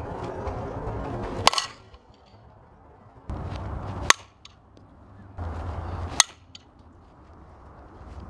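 A softball bat hitting a tossed softball three times, each a sharp crack, about two seconds apart. Each hit sits over a short stretch of low outdoor rumble that starts and stops abruptly.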